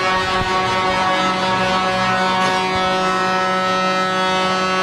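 Arena goal horn sounding one steady, unbroken tone rich in overtones, signalling a goal just scored by the home team.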